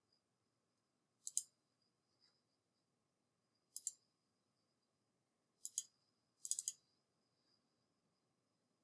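Computer mouse clicking: four short groups of sharp double clicks a couple of seconds apart, the last group a quick flurry, over near-silent room tone.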